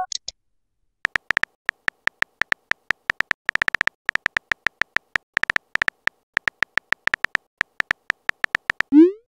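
Simulated phone-keyboard typing sounds from a texting-story app: a quick, uneven run of short tapping clicks, about five a second, as a message is typed out letter by letter. Near the end comes a short rising swoosh, the message-sent sound.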